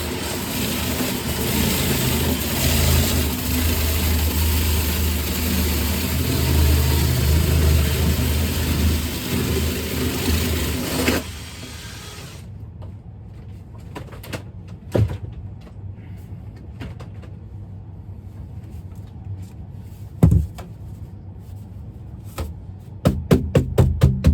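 A loud motor-driven machine runs steadily with a low hum, then shuts off about eleven seconds in. A few scattered knocks follow, and fast rhythmic ticking of music starts just before the end.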